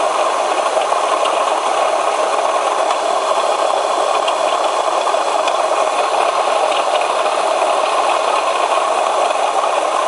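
Opel Omega B's X30XE 3.0 V6 engine running steadily, with a rattling knock from the water pump that the owner puts down to a failing pump.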